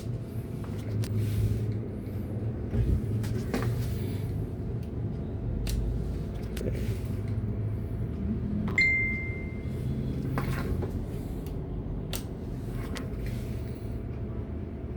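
Steady low hum with an even noise under it from a power amplifier running into a 4-ohm test load, broken by a few light clicks and one short high beep about nine seconds in.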